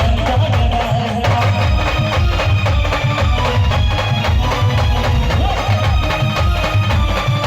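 A live band playing a folk-style song, with heavy, steady drum beats under a melody line.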